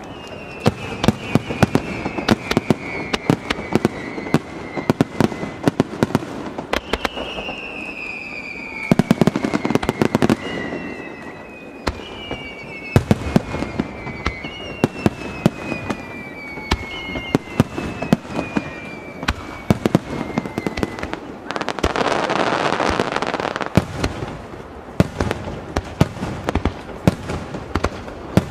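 Aerial fireworks going off in quick succession: many sharp bangs and crackles echoing off the surrounding mountains, with several whistles falling in pitch. About three-quarters of the way through, a loud rushing hiss lasts a couple of seconds.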